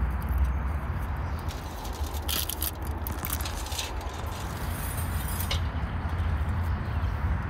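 Food being handled on a table: onions on wooden skewers set down on aluminium foil, with light rustles, clinks and a few brief crinkly patches around the middle, over a steady low rumble.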